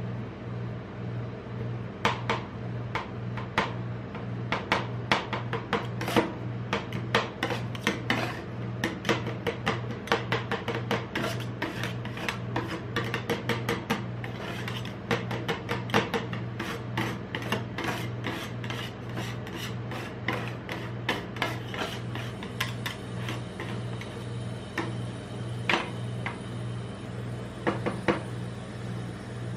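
Metal spatula blades chopping and scraping raspberries and freezing red sauce on the steel plate of a rolled-ice-cream cold plate. They make rapid, sharp taps of blade on steel, which thin out to a few scattered strikes after about two-thirds of the way. A steady low hum runs underneath.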